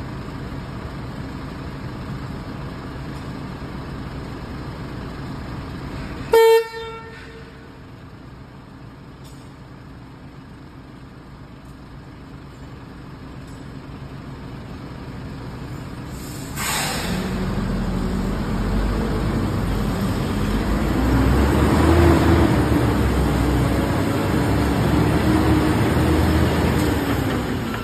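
Shacman Delong semi-truck's diesel engine running low and steady as it creeps round a hairpin bend, broken by one short, loud vehicle-horn toot about six seconds in. About ten seconds later there is a short hiss, and the engine grows louder as the truck pulls on round the curve, loudest about three quarters of the way through.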